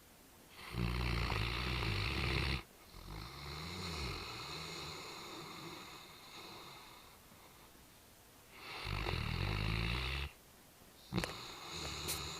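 Great Dane snoring: two loud snores about eight seconds apart, the first followed by a longer, quieter stretch of snoring that wavers in pitch. A sharp click comes near the end.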